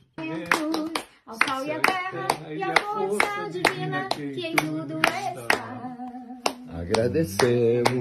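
Voices singing a grace of thanks for the food, with hands clapping along to a quick, steady beat.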